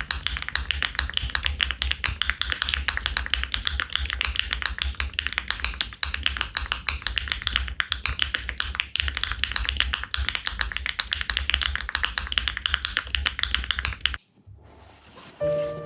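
Fast typing on a mechanical keyboard: a dense, continuous stream of key clacks that stops about 14 seconds in.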